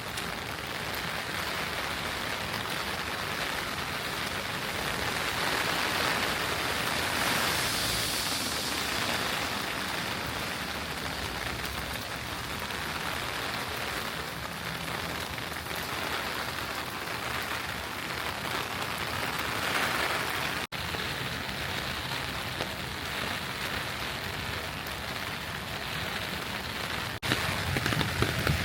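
Steady rain falling on city surfaces, an even hiss that swells slightly and settles again.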